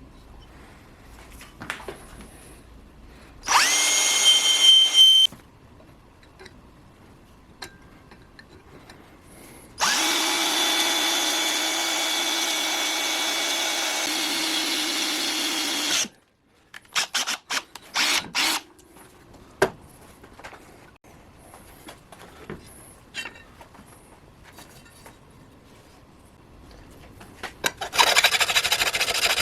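Electric drill running in bursts: a short run with a rising whine as it spins up a few seconds in, a longer steady run of about six seconds midway, then a few clicks and knocks, and it starts again near the end.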